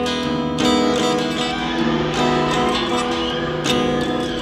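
Instrumental break in a song: guitar chords struck about every second and a half, ringing over sustained notes.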